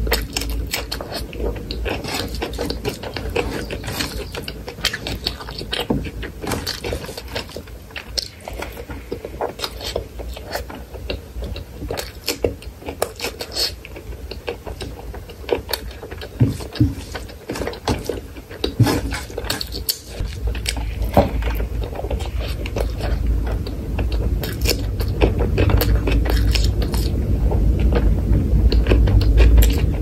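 Close-miked eating sounds: chewing of rice and curry eaten by hand, with a dense stream of wet mouth clicks and smacks and a bite into a cucumber slice at the start. A low rumble builds up in the second half.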